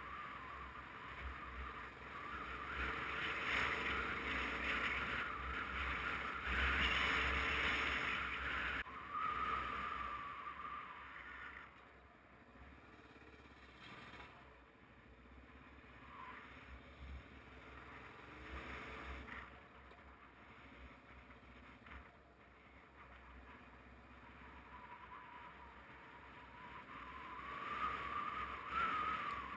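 A motorcycle riding a dirt road, with its engine running under wind and road noise. The noise is louder during the first several seconds and again near the end, and quieter in between.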